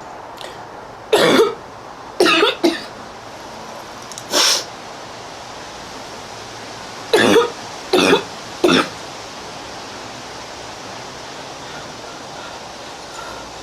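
A young woman coughing in bouts: a cluster of short coughs in the first few seconds, then three more spaced out about seven to nine seconds in, during a coughing fit that leaves her out of breath. A steady hiss runs underneath.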